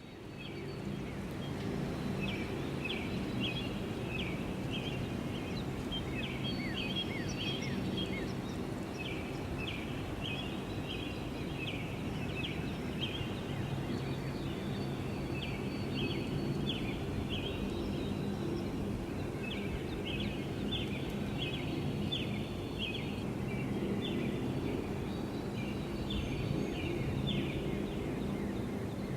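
Small birds chirping in quick, repeated short notes, in clusters through most of the stretch. Under them runs a steady low hum.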